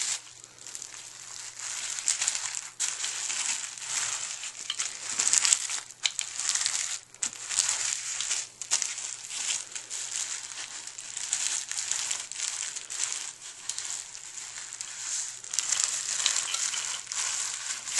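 Speedball rubber paint brayer rolled back and forth over paint-covered bubble wrap: a string of crinkling, crackling plastic strokes as the roller inks the bubbles.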